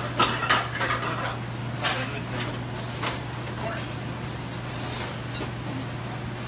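Metal tongs clinking a few times against a pan and plates as spaghetti is lifted and plated, mostly in the first three seconds, over a steady low hum of commercial kitchen equipment.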